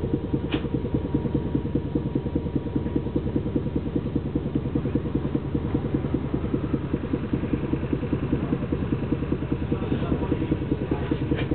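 A stationary tram's onboard machinery running steadily with a fast, even chugging pulse and a faint steady whine above it. A few light clicks near the end.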